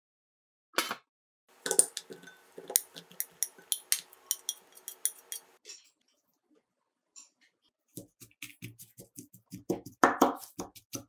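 Light clinks of kitchenware, then a wooden rod pounding steamed purple sweet potato slices in a glass bowl, a quick series of dull knocks in the last few seconds.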